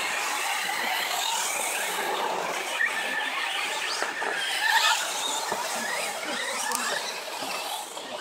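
Radio-controlled short-course trucks racing on a dirt track: a steady hiss with many short high whines that rise and fall as the trucks speed up and slow down.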